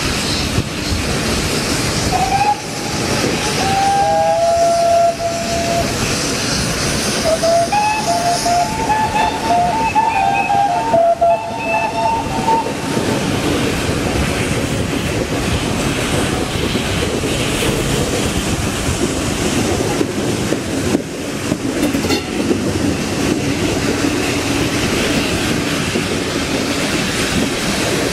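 Steam locomotive whistles sounding several blasts in the first half, some overlapping one another, over the steady running noise of a steam-hauled train heard from a carriage window.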